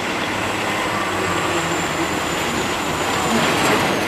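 Semi truck's diesel engine running hard under load as it drags a pulling sled, loud and steady, swelling a little near the end.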